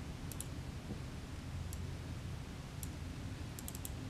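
Faint computer mouse clicks: a pair near the start, single clicks about a second apart, then a quick run of several near the end, over a low steady hum.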